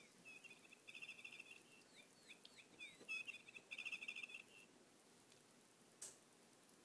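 Faint, high bird-like chirping: two rapid trills with short gliding chirps between them. A single sharp click comes near the end.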